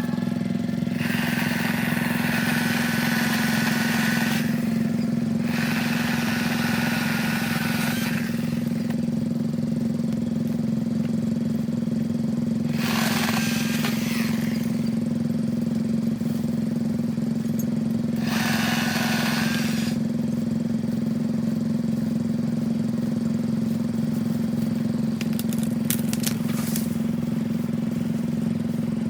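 Ryobi 18-volt battery chainsaw running steadily, with several stretches of two or three seconds of louder, harsher rasping as the chain cuts through limbs.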